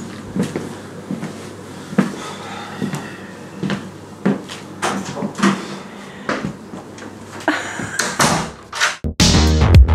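Footsteps on a wooden floor and scattered knocks and thumps of a door and things being handled in a small room. About nine seconds in, loud music with guitar and bass cuts in suddenly.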